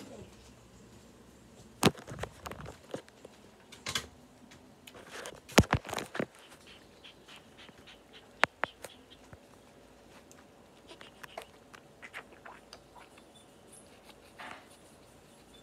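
Scattered sharp clicks and knocks with quiet in between, loudest as a cluster of several knocks around six seconds in, with single ones about two, four and eight seconds in.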